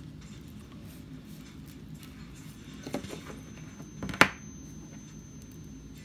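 Small hard-plastic toy figure being handled and set down on a wooden tabletop: a couple of light clicks about three seconds in, then one sharp knock a little after four seconds, over a low steady background hum.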